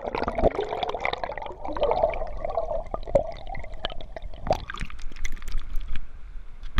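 Trout stream water heard from under the surface: a muffled rush and gurgle of current and bubbles with scattered knocks. About four and a half seconds in the muffled rush drops away to thinner splashing as the camera comes up out of the water.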